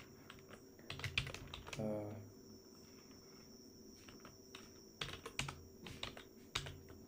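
Computer keyboard typing: clusters of keystrokes about a second in and again from about five seconds on, with a quieter stretch between. A brief murmur of a man's voice near two seconds.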